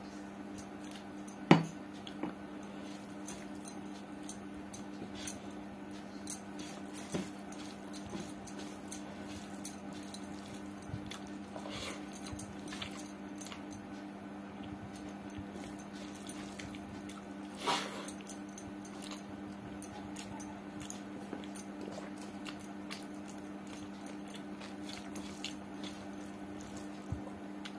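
Close-up eating sounds: many small wet chewing and lip-smacking clicks as khichdi is eaten by hand from a steel plate, with one sharp knock about a second and a half in. Under it all runs a steady low hum.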